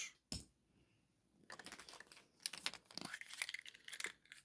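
Faint, irregular crinkling and crackling of a surprise egg's wrapper being torn open and handled, a string of small crackles starting about a second and a half in.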